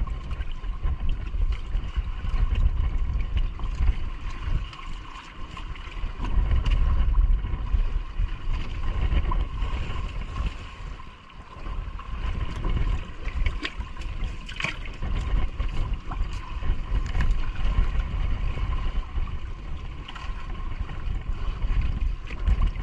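Wind buffeting the microphone on a small boat, over water splashing and sloshing in the boat's flooded hold as live fish are dropped in and thrash. A faint steady whine runs underneath, with a few sharp knocks, the clearest about halfway through.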